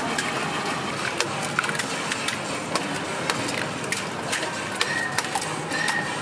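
Raw eggs being cracked one after another against the rim of a deep container: a string of sharp, irregular taps, about one or two a second, over steady background noise.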